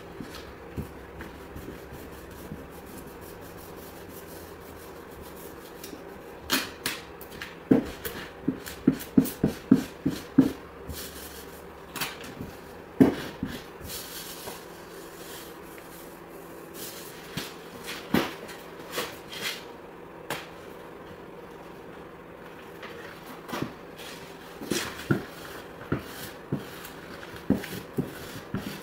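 Squeegee and hands working a vinyl decal's transfer paper onto a pickup's sheet-metal door: irregular bursts of short scrapes and taps, grouped in clusters with pauses between, over a steady low hum.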